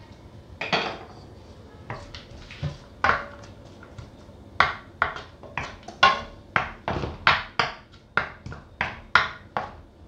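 Wooden spatula stirring chopped onions in a non-stick frying pan, knocking against the pan: two single knocks, then a quick run of about a dozen knocks, roughly two a second, in the second half. Underneath is a faint steady sizzle of onions frying in oil.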